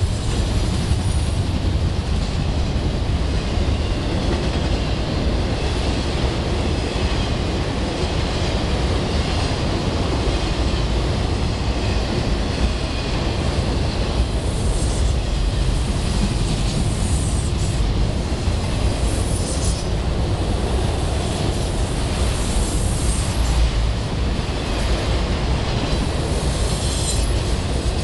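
Autorack freight cars rolling past at about 47 mph: a steady rumble of steel wheels on rail. High-pitched wheel squeal comes and goes several times in the second half as the wheels take the curve.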